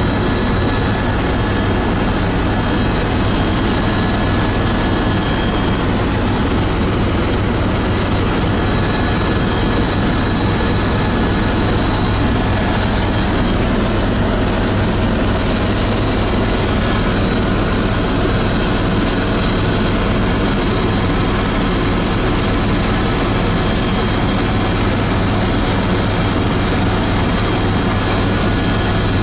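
Eurocopter EC130 helicopter heard from inside the cabin in cruising flight: its main rotor and Turbomeca Arriel 2B1 turboshaft engine make a loud, unchanging low drone with a rushing noise over it and a few faint steady high tones.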